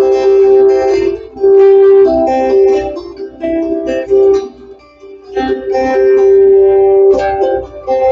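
Acoustic guitar music, plucked notes ringing on in a picked pattern, dropping away briefly about five seconds in before picking up again.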